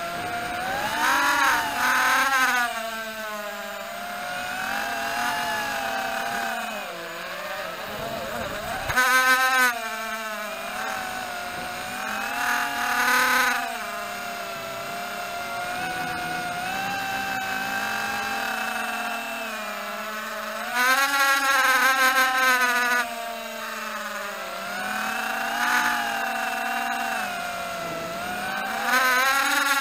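Walkera Rodeo 110 mini quadcopter's brushless motors whining in flight, the pitch rising and falling constantly with the throttle, with several short louder surges of higher pitch.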